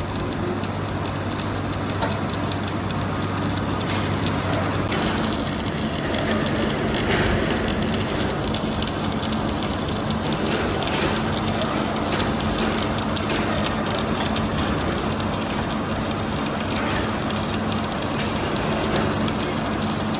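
Steady industrial machinery noise: a dense crackling hiss over a constant low hum, and the hum steps up in pitch about five seconds in.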